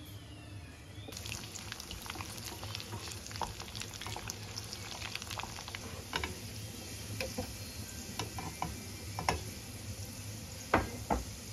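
Food frying and sizzling in a hot pan, the crackle starting about a second in and scattered with small pops and clicks. Two louder knocks come near the end, like a utensil striking the pan.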